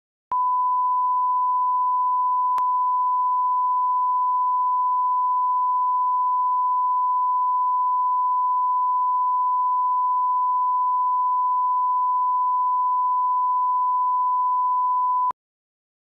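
Steady 1 kHz sine line-up test tone, the reference tone that runs with broadcast colour bars. It starts abruptly just after the beginning, has a faint click a couple of seconds in, and cuts off sharply shortly before the end.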